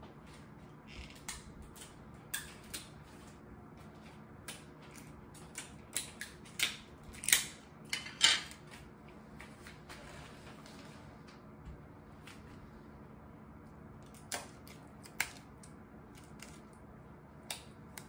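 Sticky tape being peeled off its roll and torn, with the two loudest rasping rips about seven and eight seconds in. Scattered small clicks and crinkles of packaging being handled around it.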